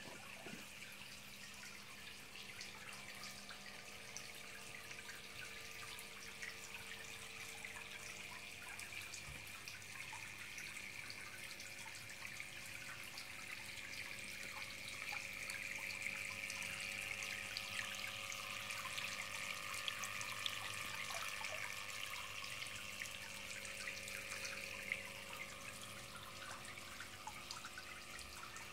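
Small homemade fountain spraying into a miniature pond: a steady faint splash and trickle of falling water with many small drip ticks, a little louder in the middle.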